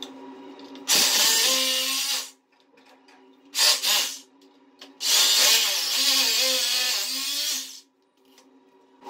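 Corded hammer drill boring into a ceramic floor tile in three runs: a burst of about a second and a half, a short one, then a longer one of nearly three seconds.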